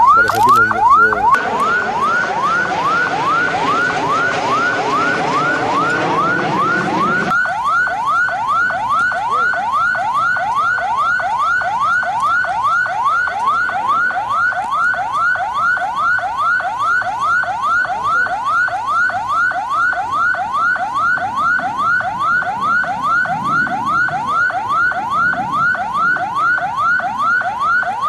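Electronic alarm siren whooping: a rising sweep that repeats about three times a second, loud and unbroken. For the first seven seconds a loud rushing noise runs underneath and then cuts off suddenly.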